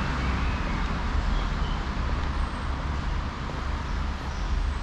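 Steady city street traffic noise: a low rumble under an even hiss.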